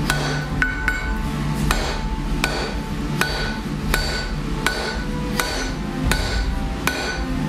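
Hand hammer striking metal on an anvil during forging, a steady rhythm of about one blow every three quarters of a second, each strike ringing briefly.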